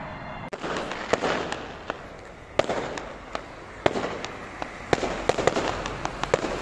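Fireworks going off: a string of sharp bangs with crackling between them, coming thicker and faster from about five seconds in.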